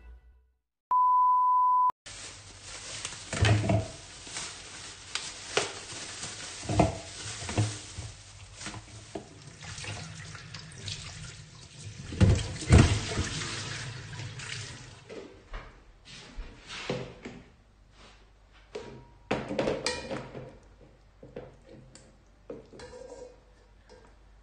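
A steady electronic beep lasting about a second, then a kitchen tap running into a bowl in a stainless steel sink as raw pork is rinsed by hand, with splashes and knocks against the bowl. After about 16 s the water stops and only scattered knocks from handling the meat remain.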